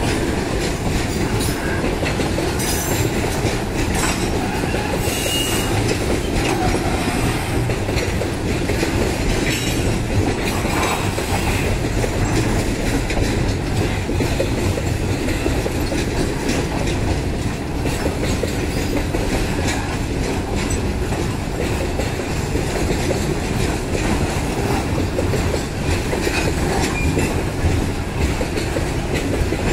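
Loaded freight wagons (boxcars and covered hoppers) rolling steadily past: the continuous rumble of steel wheels on rail with clickety-clack over the rail joints, and a short wheel squeal about five seconds in.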